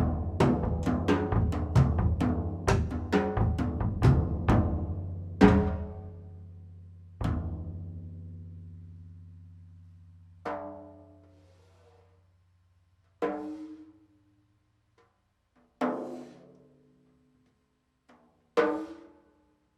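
Solo percussion: a fast run of drum strikes for about five seconds, then two heavy hits whose deep tones ring on and slowly fade. After that come sparse single resonant strikes, one every two to three seconds, each ringing with pitched overtones before dying away.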